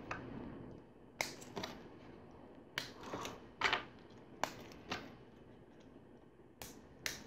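LEGO wheels with rubber tyres being pressed onto the axle pins of a small plastic LEGO vehicle, making a string of sharp, irregularly spaced plastic clicks and taps.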